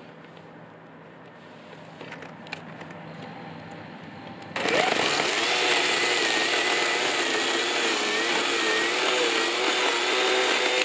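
Black & Decker GKC3630L20 36-volt cordless chainsaw with a 30 cm bar cutting through a log. About four and a half seconds in, the electric motor comes on suddenly at full speed, and its pitch wavers slightly as the chain bites into the wood.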